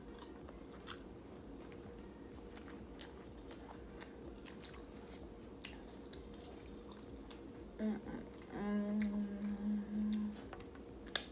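Close-up chewing of a mouthful of rice, with soft wet mouth clicks and smacks. About eight and a half seconds in comes a steady hummed "mmm" of enjoyment lasting nearly two seconds, and a sharp smack near the end.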